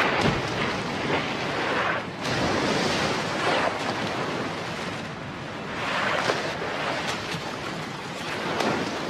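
Sea water rushing and splashing at the surface as a pod of dolphins leaps and breaks through it, swelling and fading several times.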